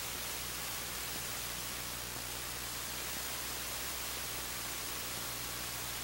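Steady hiss of radio static from the received amateur-radio downlink, with a low steady hum under it and no voice on the channel.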